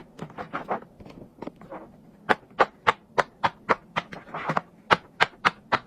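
Silicone pop-it fidget toy bubbles being pressed one after another: a run of sharp little pops, faint and uneven at first, then louder at about three or four a second.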